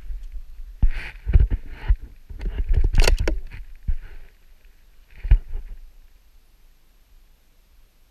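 Knocks, clatter and rubbing as a bolt-action rifle in a Masterpiece Arms BA chassis is moved and set onto a wooden PRS barricade. The noise comes in a cluster through the first half, loudest about three seconds in, and fades to little in the last couple of seconds.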